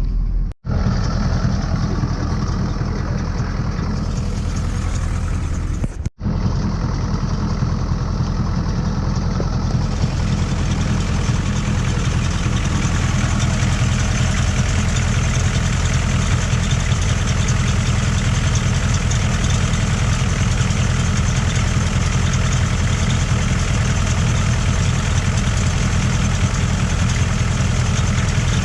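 A 1985 GMC 3500's 6.2-litre Detroit V8 diesel running steadily with a low rumble. The sound cuts out briefly twice: under a second in and about six seconds in.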